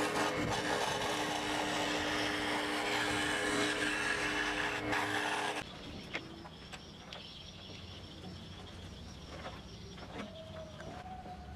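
Electric scroll saw running and cutting thin plywood: a steady motor hum under the rasp of the reciprocating blade. It cuts off abruptly about five and a half seconds in, leaving quieter room sound with a few light taps.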